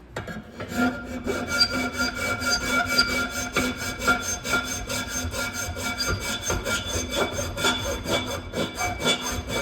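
Hand file rasping back and forth on metal in quick, even strokes, about five a second, with the metal ringing under it: filing flat spots for the damper's butterfly plates to sit on.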